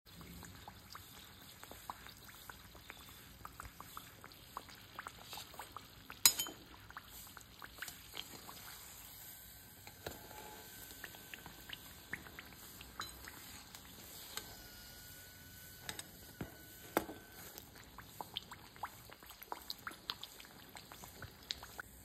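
Kachoris deep-frying in hot oil in a kadai: a steady sizzle with scattered small pops and crackles. A sharper clink comes about six seconds in.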